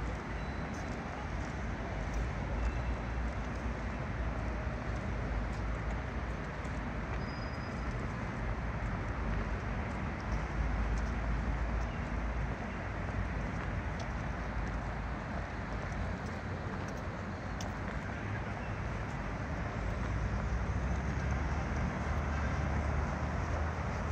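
Steady outdoor city ambience: a constant hum of road traffic with a low rumble underneath.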